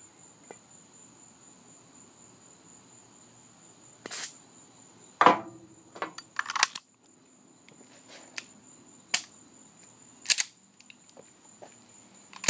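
WE 1911 gas blowback airsoft pistol firing: sharp single shots a second or more apart, with a quick short burst about six and a half seconds in.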